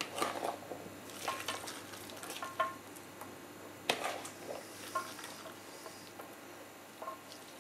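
Wet chopped onion-and-garlic marinade being scraped by hand out of a plastic bowl onto raw meat in a metal bowl: scattered soft scrapes, wet pats and light taps, a few with a brief squeak.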